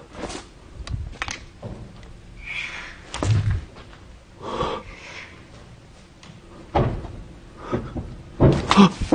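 A series of irregular knocks and dull thuds, with a few softer scuffing noises between them and several loud knocks close together near the end.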